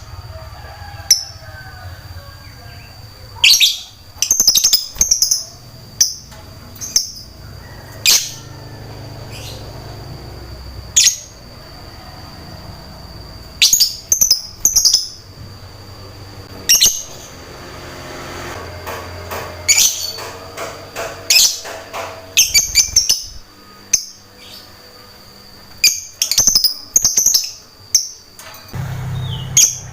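Lovebird singing: shrill, high chirps in short rapid clusters every second or two, over a steady high tone that stops near the end. It is a lure song of the kind played to coax silent lovebirds into answering and singing.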